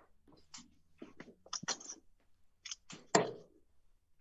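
Steel-tip darts striking a Winmau Blade 5 bristle dartboard: a handful of short knocks, the loudest about three seconds in.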